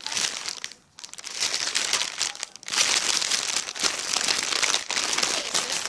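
Plastic packaging of a squishy toy crinkling and rustling as it is handled, with two short pauses, about one and two and a half seconds in.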